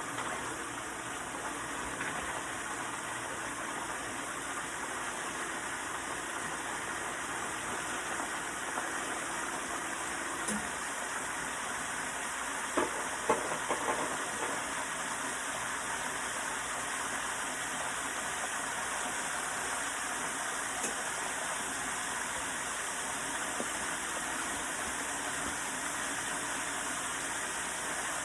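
Party wings deep-frying in hot grease: a steady sizzle, with a few short clicks about halfway through.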